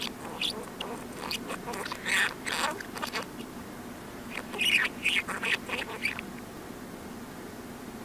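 Talking budgerigar's chatter played backwards: rapid squeaky chirps and warbles in two runs, the first through the opening three seconds and the second around the middle. A steady low hum runs underneath.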